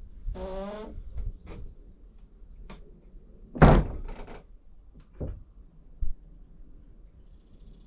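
A few dull thumps and knocks, the loudest about three and a half seconds in, with a short pitched sound near the start.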